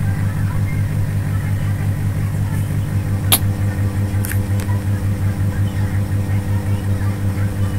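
A steady low machine hum with a slight pulse, and a sharp click about three seconds in followed by two fainter clicks a second later.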